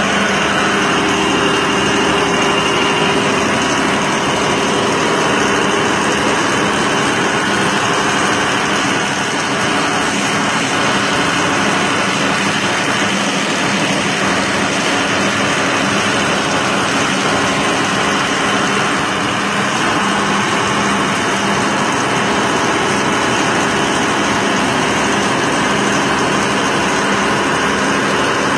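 A repaired Camis machine running steadily on test, a constant mechanical whirr with a steady low hum and no change in speed.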